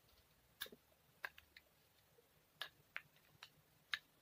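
Spoon clicking against a small glass bowl while sauce is scooped out: a series of short, light clinks at uneven intervals, over near silence.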